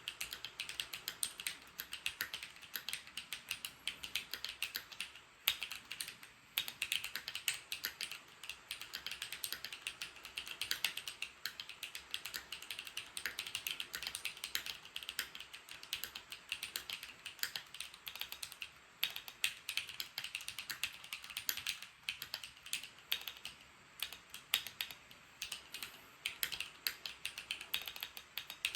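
Continuous fast typing on a Keychron Q1 mechanical keyboard with Dark Jade switches: a dense, uneven stream of sharp key clicks with a few short pauses. The board has tape-modded, foam-dampened casing and rebalanced, relubed stabilizer wires.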